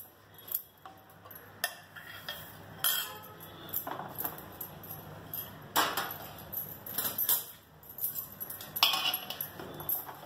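Steel spoon clinking and scraping on a steel plate and metal pot, and a wooden spatula stirring a sticky sesame-and-jaggery mixture in the pot: irregular clinks and scrapes, with a few louder knocks.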